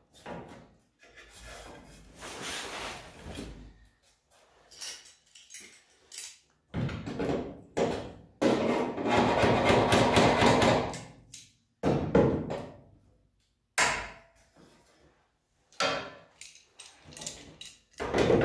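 18-gauge sheet-steel rocker panel being pushed and slid into place against the car's lower body by hand: metal scraping and rubbing on metal, with several knocks. Near the end there are sharp strokes as locking pliers are clamped on to hold it.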